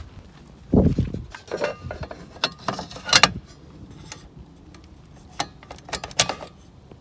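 A dull thump about a second in, then clusters of sharp metallic clicks and clinks as the hinged cover of an outdoor AC disconnect box is opened and the pull-out disconnect is handled to cut power to the heat pump.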